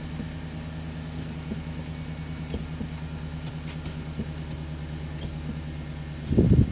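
2009 Chevrolet Silverado pickup engine idling steadily. A brief loud low thump comes near the end.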